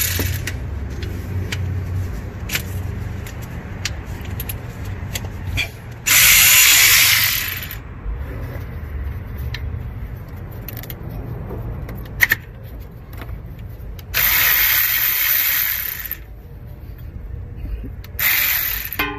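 12V cordless electric ratchet whirring in three bursts, about 6, 14 and 18 seconds in, the last one short, as it backs out the AC compressor's mounting bolts. Scattered clicks and knocks of the tool on the bolts come between the bursts.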